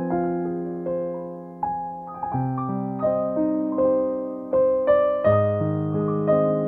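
Background music: a slow, gentle piano melody over sustained chords, each note struck and fading away.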